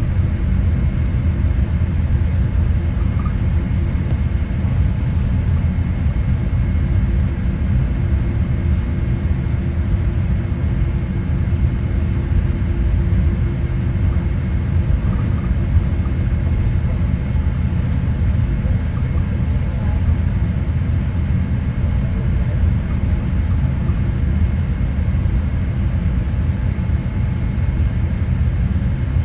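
Steady low rumble in the cabin of a Boeing 787-8 taxiing, with the engines idling and the wheels rolling over the taxiway, heard from inside the cabin. A few faint steady tones sit above the rumble.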